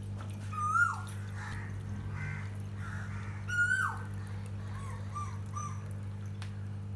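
Water pouring in a thin stream from a plastic bottle into a glass carafe, with soft splashing. Over it, a falling whistled animal call, heard twice about three seconds apart, is the loudest sound, along with faint high chirps and a steady low hum.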